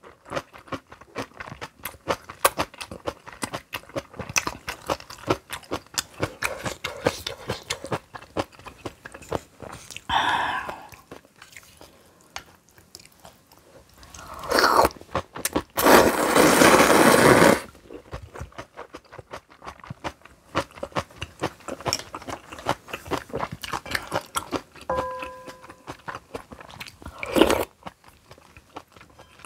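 Close-miked chewing and crunching of garlic kimchi, with wet mouth clicks and smacks throughout. A long hissing slurp, typical of noodles being sucked in, comes about halfway through. Near the end there is a brief ringing clink and a sharp knock.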